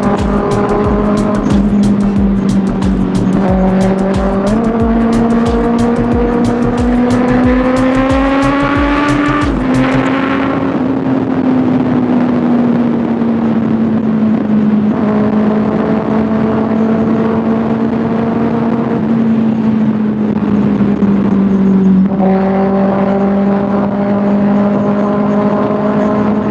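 Kawasaki ZX6R's 636 cc inline-four running hard at a steady high-revving note, climbing in pitch for the first ten seconds as it accelerates, then holding and drifting at cruising revs. Wind buffets the microphone roughly through the first ten seconds.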